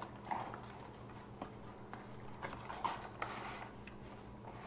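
Doll box packaging being handled and opened: scattered light clicks and rustles of cardboard and plastic, over a steady low hum.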